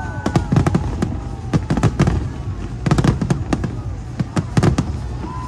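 Fireworks display: shells bursting in rapid, irregular succession, a mix of deep booms and sharp cracks, several a second.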